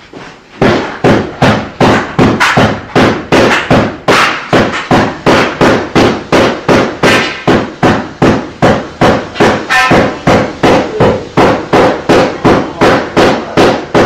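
Hammer striking steadily and hard, about two and a half blows a second, each blow with a short metallic ring. The blows start about half a second in.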